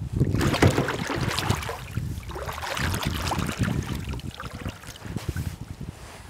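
Paddle strokes dipping into lake water, with splashing and trickling water around a canoe or kayak. The splashing is strongest in the first few seconds and eases off toward the end.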